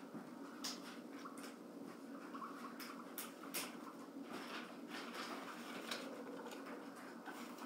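Quiet room with a steady low hum and scattered faint clicks and scratchy ticks, irregularly spaced.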